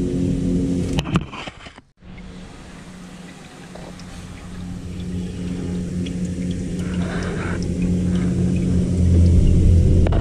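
A steady low mechanical hum with a couple of held low tones. It drops out abruptly about two seconds in, then comes back and grows louder toward the end.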